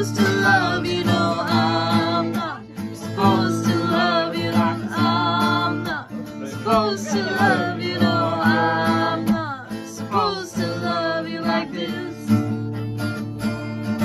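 Background music: strummed acoustic guitar with a singing voice over it.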